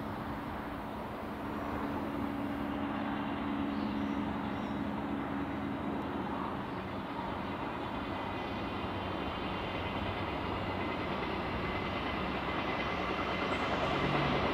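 Rail motor HPC402's twin 6-71 diesel engines running as the railcar approaches along the track, a steady drone that grows louder toward the end.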